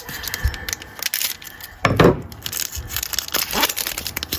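Trading card pack wrapper being torn open and crinkled in the hands, with crackling rustles and a louder moment about two seconds in.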